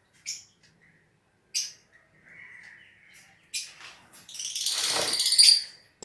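Lovebird calling: a few short, shrill chirps, then a louder, longer call of about a second and a half near the end.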